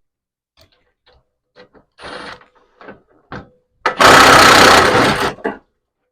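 Light clicks and knocks of parts being handled in an engine bay, then a loud mechanical rattle lasting about a second and a half.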